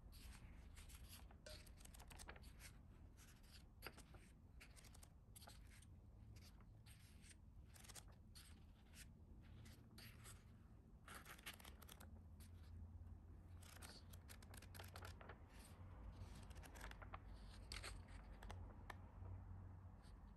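Faint paper handling: a quick run of short, crisp rustles and scratches, as of sheets of paper or stickers being handled and shuffled, over a low room hum.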